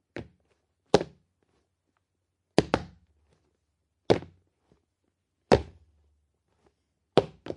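Cartoon walking sound effect: heavy, thudding footsteps about one every second and a half, a couple of them doubled in quick succession.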